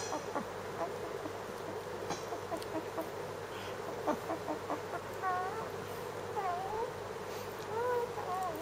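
A month-old Pomeranian puppy whining and squeaking in play. It gives a few short, wavering high calls in the second half.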